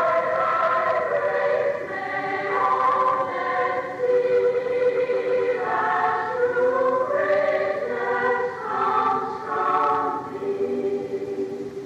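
Choir singing a hymn in sustained chords, played back from a tape recording; the sung phrase ends just before the end.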